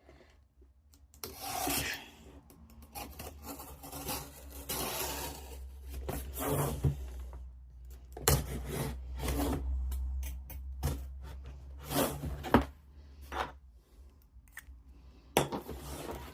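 A cardboard delivery box being opened by hand: packaging rubbing and scraping, with a few sharp knocks and clicks.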